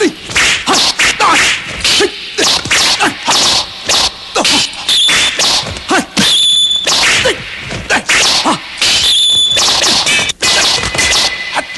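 Kung fu film fight sound effects: a rapid, loud string of whooshes and punching whacks, with several metallic sword clashes that ring on briefly.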